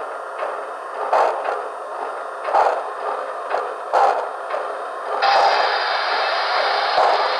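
DCC sound decoder of a Broadway Limited HO-scale Santa Fe 4-6-4 Northern model, played through the model's small speakers with no bass. It gives slow recorded steam exhaust chuffs, a strong one about every second and a half with fainter ones between. About five seconds in, a steady steam hiss starts and runs on under the chuffs.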